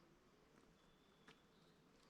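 Near silence, with one faint click a little over a second in.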